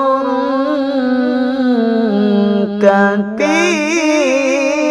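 Solo voice reciting the Quran in melodic tilawah style, drawing out a long ornamented note that wavers in pitch. It breaks off for a breath about three seconds in and resumes on a higher phrase, over a steady low tone.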